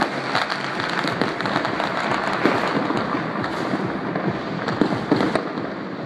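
Many fireworks and firecrackers going off at once: a dense, steady crackle of pops with a few louder bangs.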